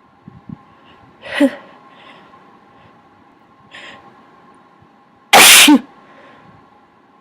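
A person sneezing, sick: a smaller sneeze about a second and a half in, a short breath a little before four seconds, then a much louder sneeze near the end, loud enough to clip.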